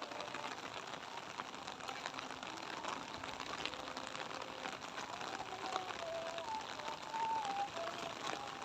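Light rain falling steadily, many small drops pattering. A faint wavering tone comes and goes behind it.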